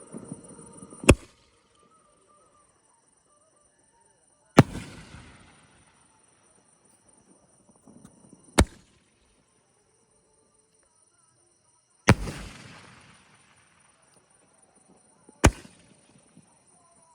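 A 3.5-inch aerial shell cake (Mr. Big Marvaleous 24) firing, with five loud single booms spaced about three to four seconds apart. Two of the booms trail off in a hiss of about a second.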